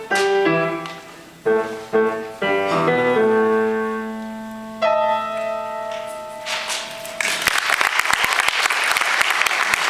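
Upright piano playing the closing chords of a piece and ending on a held chord that rings out. Audience applause breaks out about seven seconds in.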